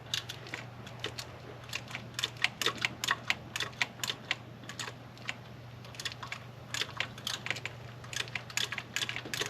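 Hand ratchet wrench clicking in short strokes on a 13 mm bolt, a few clicks per second in irregular runs. The ratchet can swing only about one click at a time because the bolt sits in a tight spot.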